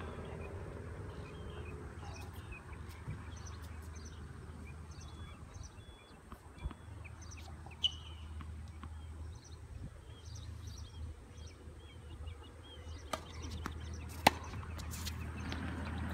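Small birds chirping on and off over a low steady rumble, with a few sharp knocks of a tennis ball; the loudest knock comes about two seconds before the end.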